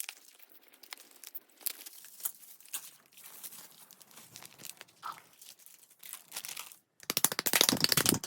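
Packaging being handled and unwrapped, with small crinkling crackles. After a brief silent gap near the end comes a louder, denser run of rapid crackling, as of wrapping being torn.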